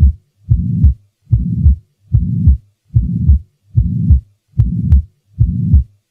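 Heartbeat with a pansystolic (holosystolic) murmur: an even-intensity whoosh filling each systole from the first to the second heart sound, beats about 0.8 seconds apart. This kind of murmur is the sign of backward blood flow through the heart.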